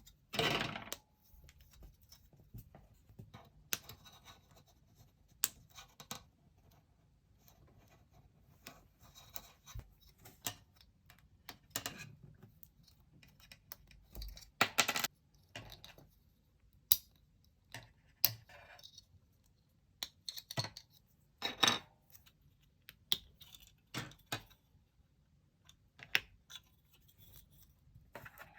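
Plastic parts of a Bandai Haro snap kit being snapped out of their runners by hand: irregular sharp plastic snaps and clicks, a few at a time, with quiet handling rustle between.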